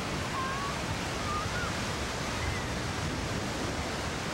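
Ocean surf washing onto a sandy beach: a steady, even rush of breaking waves.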